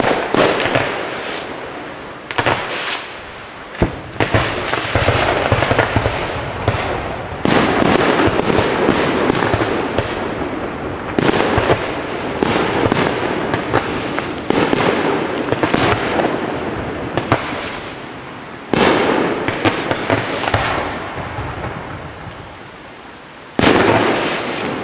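Aerial fireworks bursting one after another, each sharp bang followed by a long crackling and rumbling tail, with a dense run of crackle in the middle and a last loud burst near the end.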